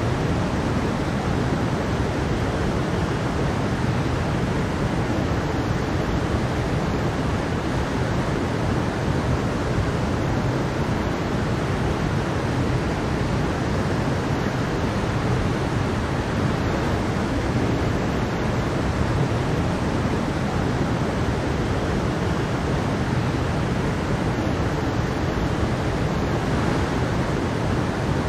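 Mountain stream flowing over rocks and a small waterfall: a steady rush of water, strongest in the low end.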